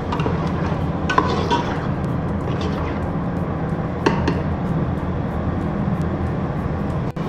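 Mutton and masala frying in oil in a metal pot, sizzling over a steady low hum, while a metal spatula stirs and scrapes against the pot a few times.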